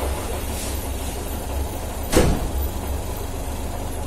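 Car engine idling just after a cold morning start, running rough and shaking with a ticking sound. One loud thump about two seconds in.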